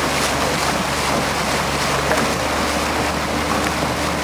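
Steady rush of wind buffeting the microphone and water moving past a boat underway, over a constant low hum.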